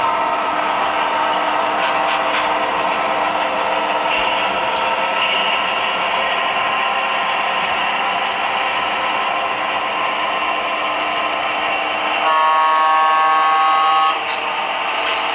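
Sound decoder in an HO-scale model diesel locomotive playing a steady diesel engine sound, with its horn blowing once for about two seconds near the end.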